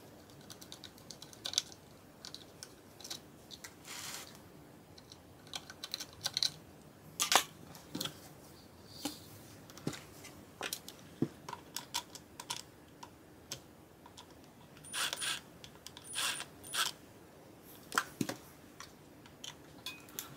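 Hand screwdriver working the small screws out of a Denon MC6000 DJ controller's metal side panel: irregular light clicks and ticks of the driver tip on the screw heads, with a few short scrapes about three quarters of the way through.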